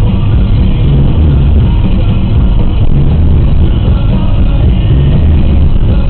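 Background music with a heavy bass line.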